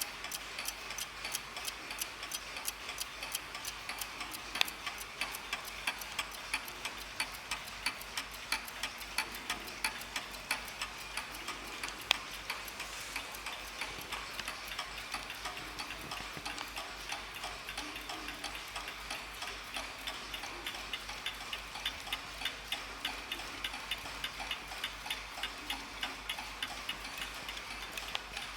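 Several wind-up mantel clocks ticking at once, their ticks overlapping out of step into a dense, many-ticks-a-second patter. A couple of ticks stand out louder, about 5 and 12 seconds in.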